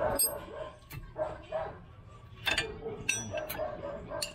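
Several short sharp metallic clinks of hand tools working on a brake caliper, with yelping animal-like calls in the background between them.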